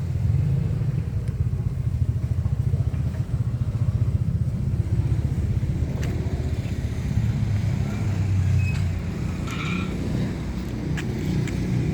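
A motor vehicle engine idling steadily, a low, fast-pulsing rumble, with a few faint clicks.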